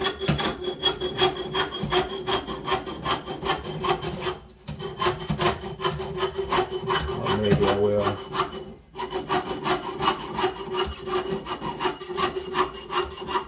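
Jeweler's saw blade cutting through sheet metal in quick, even back-and-forth strokes, stopping briefly twice, about four and a half and about nine seconds in.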